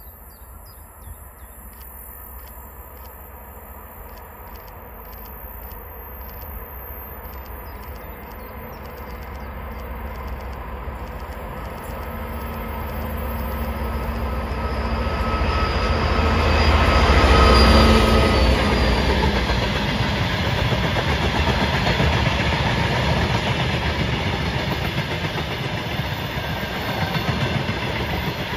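LDZ 2TE116 twin-section diesel-electric locomotive approaching and passing with a train of empty tank wagons. Its diesel engine drone grows steadily louder to a peak a little past the middle as it goes by. Then the wagons' wheels rumble and clatter past on the rails.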